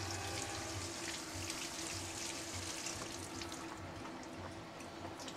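Kitchen tap water running as cherry tomatoes are rinsed, a faint steady splashing that thins out about three and a half seconds in, over a steady low hum.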